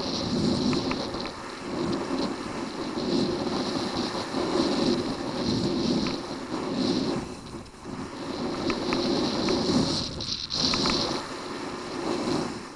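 Skis scraping and carving across hard-packed snow through linked turns, the rasp swelling and fading with each turn about once a second, over steady wind rush on the microphone.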